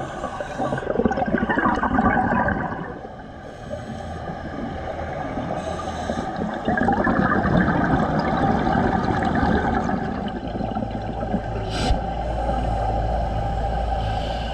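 Scuba regulator breathing recorded underwater: two long exhalations of gurgling bubbles, about a second in and again from about seven seconds. Near the end there is a low rumble and one sharp click.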